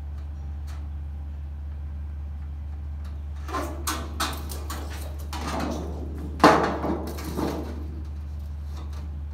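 A sheet of trim coil rattling and scraping as it is handled in a sheet-metal brake: a run of clattering handling noises from about three and a half seconds in, with the loudest a sharp clank about six and a half seconds in. A steady low hum runs underneath.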